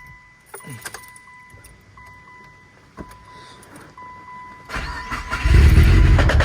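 A faint steady high tone with a few clicks. About five seconds in, the Mitsubishi Lancer Evolution VIII's turbocharged 4G63 four-cylinder engine cranks briefly, catches and runs loudly.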